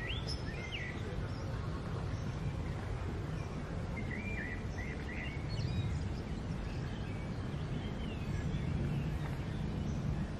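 Small birds chirping in short, scattered phrases over a steady low outdoor rumble, with a few chirps near the start, a cluster about halfway through and a few more near the end.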